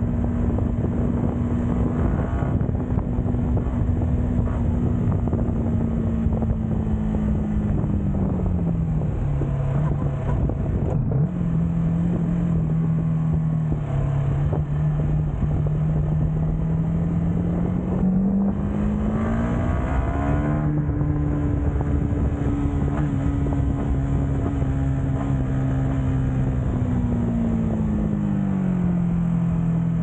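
Yamaha MT motorcycle engine and exhaust running on the move. The engine note eases down about eight seconds in, climbs again around eighteen seconds as the throttle opens, and falls once more near the end.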